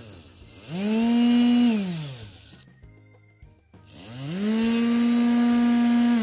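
A power tool's electric motor spins up, runs at a steady speed and winds down, twice; the second run is held longer.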